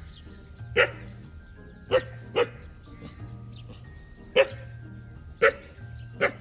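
Village dogs barking: six short, loud single barks at uneven intervals, over background music.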